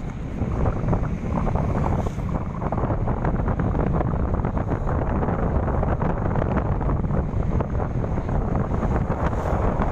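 Wind buffeting the microphone of a phone carried on a moving vehicle: a steady, low, fluttering rush.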